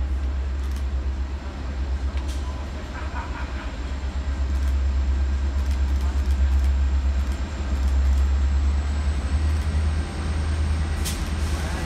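Diesel-electric freight locomotives, an NR-class unit leading two AN-class units, approaching at speed: a deep steady engine rumble that grows louder over the first half.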